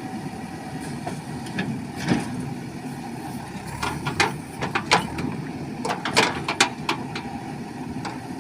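JCB backhoe loader's diesel engine running steadily, with a series of sharp clanks and knocks between about two and seven seconds in.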